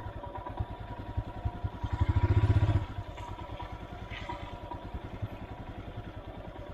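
Royal Enfield Himalayan's 411 cc single-cylinder engine running at low revs in a steady thud, with a brief louder burst of throttle about two seconds in.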